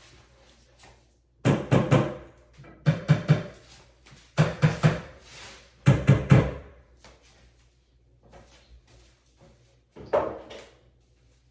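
A hammer tapping flat-pack IKEA furniture parts to seat them all the way in. The knocks come in four clusters of several quick strikes, about a second and a half apart, each ringing briefly through the panel, and a lighter cluster comes near the end.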